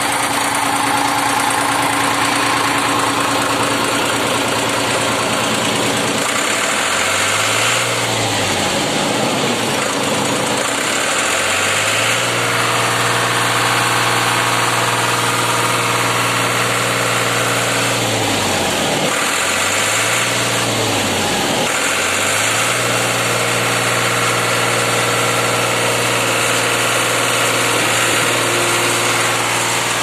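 Diesel engine of an Aquarius concrete pump running just after starting. Its speed swells and drops a few times, from about seven seconds in and again around twenty seconds, before settling at a steady higher speed.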